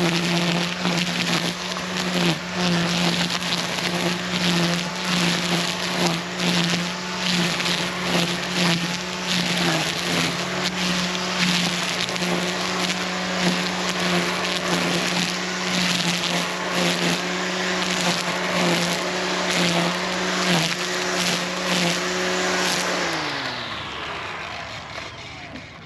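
Echo eForce 56V battery-powered tool's electric motor running at a steady speed, with dense crackling and snapping as it cuts through growth. About 23 seconds in, the motor spins down with a falling whine.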